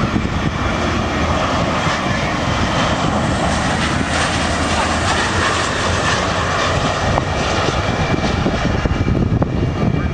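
Jet engines of a Boeing 737-800, its CFM56-7B turbofans, running at approach power on final approach. A steady rush of noise with a faint high whine.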